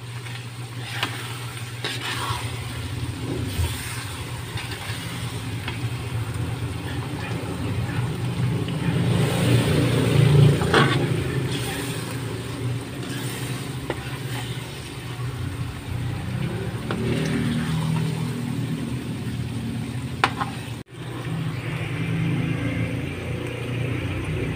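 Shrimp paste sizzling in oil in a metal wok while a metal spatula stirs it, with occasional clicks of the spatula against the pan, over a steady low hum.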